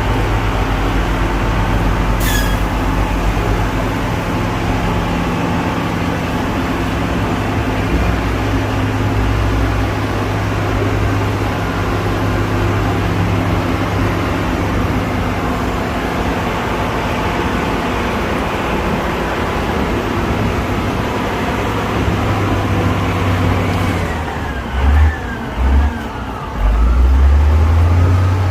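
Diesel engine of heavy road-construction machinery running steadily, with a few deep low thumps near the end.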